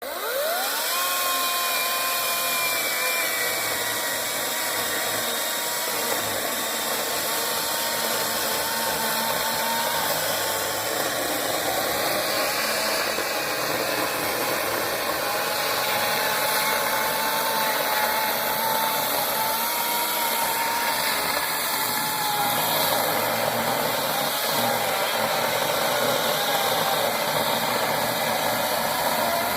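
Hart 14-inch electric chainsaw spinning up within the first second, then running at speed with a steady high motor whine over the rasp of the chain cutting wood. The pitch sags a little at times as the saw takes load in the cut.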